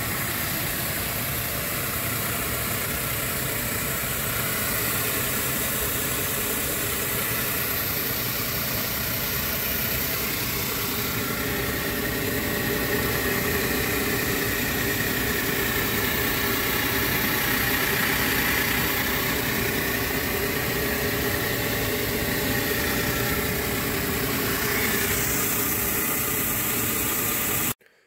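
Steam cleaner running steadily, its motor and pump going while the jet of hot water and steam blasts flood silt off a tractor engine. The sound cuts off suddenly near the end.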